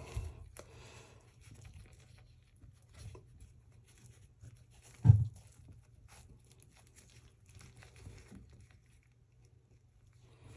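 Gloved hand rustling and scraping around an old toilet closet flange and drain pipe in faint scattered touches, with one dull thump about five seconds in.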